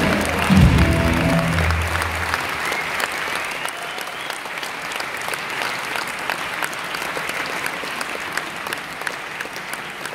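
A live rock band with electric guitar sounds its last notes, which die away after about two seconds into steady audience applause.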